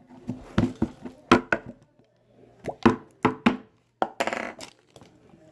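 Noise putty being worked in its pot, giving a run of short pops and squelches in small clusters, with a longer, rougher one about four seconds in.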